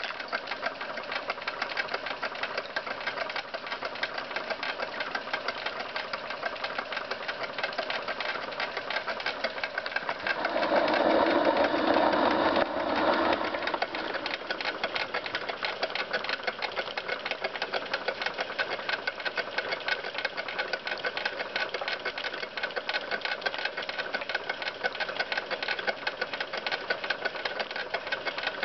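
Wilesco D8 toy steam engine running fast, its oscillating cylinder and tinplate works giving a rapid, even clatter of ticks, driving a tin toy watermill through a spring belt. Around the middle it grows louder and rougher for about three seconds, then settles back to the same steady clatter.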